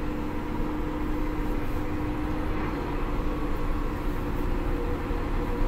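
Case IH Steiger 580 four-wheel-drive tractor driving along a road, heard from inside the cab: a steady drone from its six-cylinder diesel engine and tires, with a hum that shifts slightly about halfway through.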